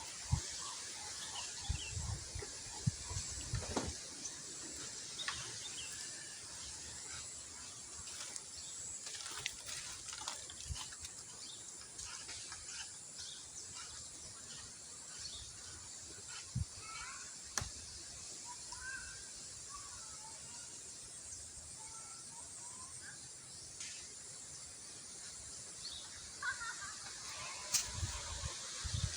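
Outdoor ambience: a steady high hiss with scattered short chirping animal calls, a few sharp clicks, and low thumps in the first few seconds and again near the end.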